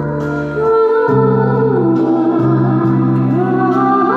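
Background music: held bass notes that change every second or so, under a slow melody line that glides up and down.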